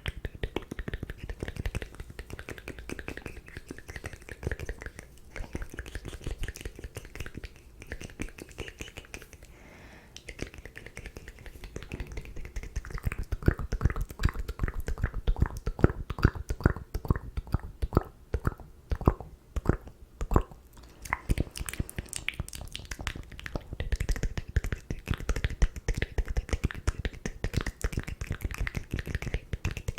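ASMR mouth sounds close to the microphone: rapid wet clicks and pops of the tongue and lips, thickest and loudest in the middle.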